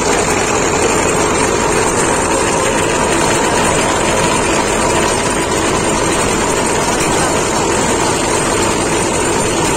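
Farm tractor's diesel engine running steadily under load while its PTO shaft drives a rotavator (rotary tiller) working through the soil. A loud, even, unbroken running noise.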